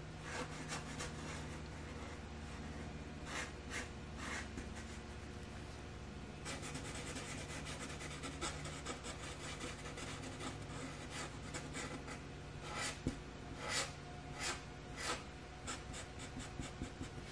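Black Sharpie marker rubbing and scratching on watercolor paper as it fills in dark areas, faint, with clusters of sharper strokes about three seconds in and again near the end.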